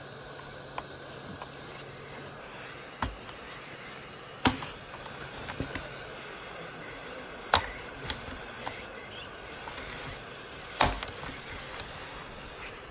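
Heat gun blowing steadily over a laptop keyboard's metal backplate, with a few sharp clicks or snaps from the plate and keyboard under the hands, the loudest about 4.5, 7.5 and 11 seconds in.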